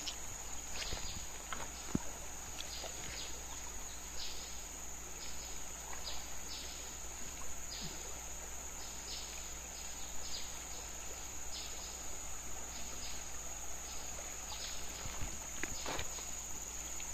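Insects in the forest: a steady high-pitched buzz throughout, with short chirps repeating irregularly about once or twice a second, over the low rush of a flowing river.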